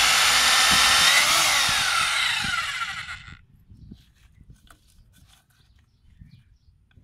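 Corded electric drill boring through a PVC pipe, its whining motor shifting up and down in pitch, then stopping a little past three seconds in. Faint scattered clicks follow.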